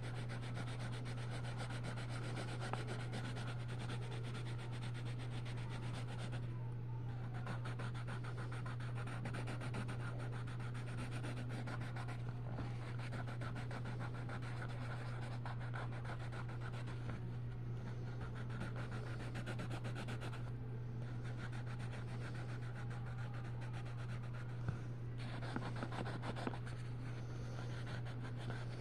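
Coloured pencil shading on coloring-book paper: quick, scratchy back-and-forth strokes, broken by a few short pauses, over a steady low hum.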